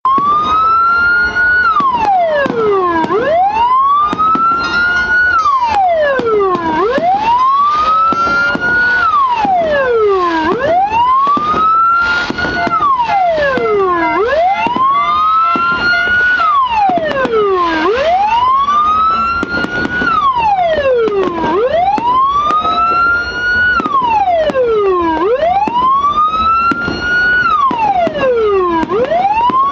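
Electronic police-escort siren module sounding through a TOA horn speaker in a steady wail: the tone rises from low to high over about a second and a half, then falls more slowly, about eight cycles, each roughly four seconds long.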